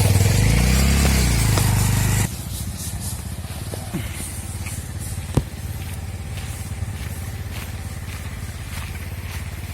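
Motorcycle engine, loud and revving up and down for about two seconds, then dropping suddenly to a quieter steady run.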